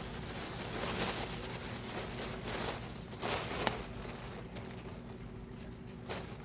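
Makeup packaging being handled: rustling and crinkling, with a sharp click about three and a half seconds in.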